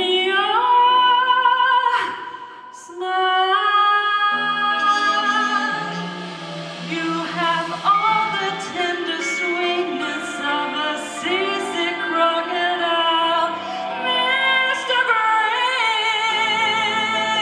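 A woman singing into a microphone with live band accompaniment, holding long notes with vibrato, with a short break about two seconds in.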